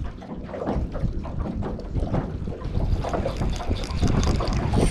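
Wind buffeting the microphone, an uneven low rumble, with water lapping underneath.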